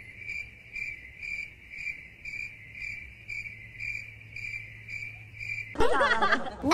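Cricket chirping used as a comedy sound effect for an awkward silence: an even, high chirp repeating about two and a half times a second. Near the end a loud voice with sweeping pitch suddenly cuts in over it.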